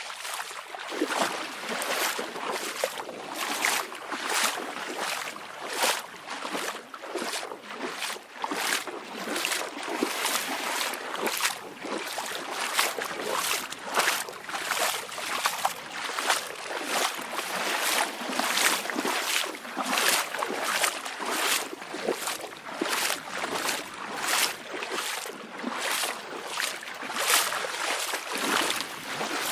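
Small waves lapping and splashing over a steady wash of water, in quick repeated slaps about two a second.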